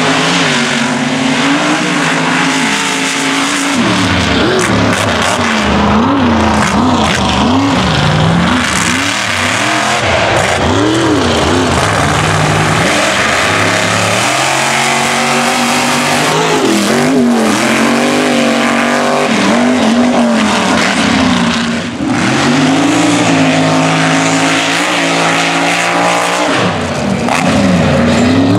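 Mega truck and buggy engines revving hard at full throttle. The pitch climbs and drops again and again as the drivers accelerate and let off.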